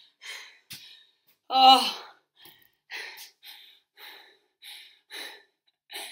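A woman breathing hard after a high-intensity workout, quick heavy breaths about every half second, with one louder voiced sigh about one and a half seconds in: she is out of breath and recovering from the exertion.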